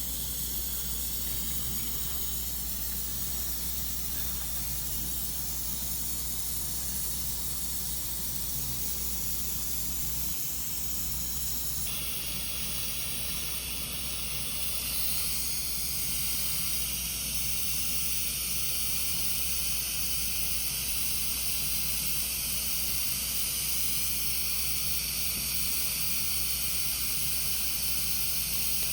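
A steady hiss over a low hum. The hiss changes tone about twelve seconds in and grows a little louder a few seconds later.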